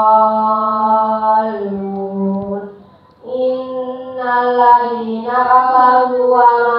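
A child's voice chanting Quran recitation through a microphone in long, melodic held phrases, with a short break for breath about three seconds in before the next phrase.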